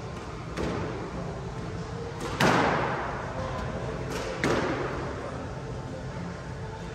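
Squash ball being hit with a racket and striking the court walls, several sharp cracks that ring and echo. The loudest comes about two and a half seconds in, and two more follow close together just after four seconds.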